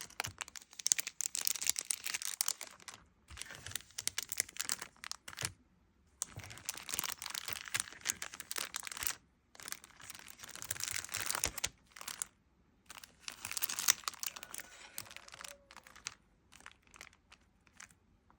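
Paper being crumpled and crinkled in repeated bursts of crackling, with short pauses between them, dying down near the end.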